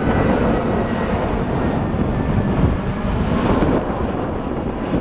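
Jet engines of an Airbus A320 on final approach with gear down, a steady rushing roar as the airliner passes low overhead.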